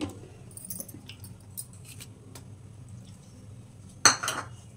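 Steel kitchen utensils clinking against plates and bowls: a sharp click at the start, a few light ticks, then two loud metallic clanks close together about four seconds in.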